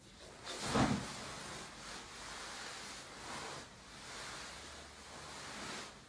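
Soft rustling of bedsheets and a hand-held phone, in slow swells, with the loudest rustle about a second in.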